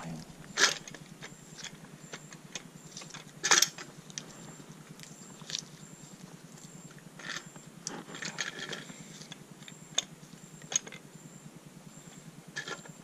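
Scattered clicks and metal knocks from an aluminium engine bearing girdle and its bolts being handled and set against a Honda B18C engine block, with two louder knocks in the first few seconds and a run of small clicks around the middle.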